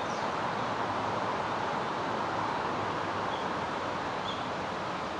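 Steady outdoor rushing noise with no distinct source, like wind, running water or distant traffic, with two faint high chirps from a small bird about three and four seconds in.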